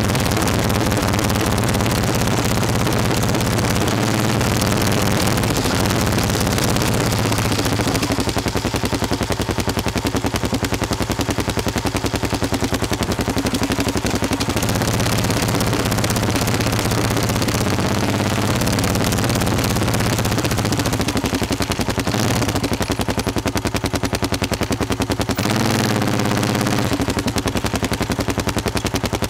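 Motorcycle engine running on the move, a rapid train of exhaust beats over a rushing wind and road noise; the engine note swings up and down near the end as the speed changes.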